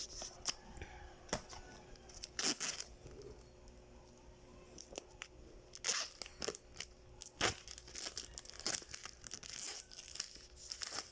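Packaging being torn open and crinkled by hand while unboxing a camera: short, irregular rips and crackles.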